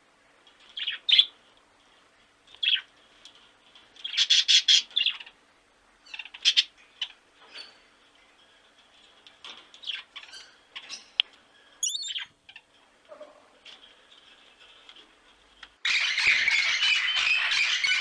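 Rainbow lorikeet giving short, sharp squawks and chirps, singly and in quick clusters with pauses between. Near the end a loud, dense, unbroken screeching chatter sets in.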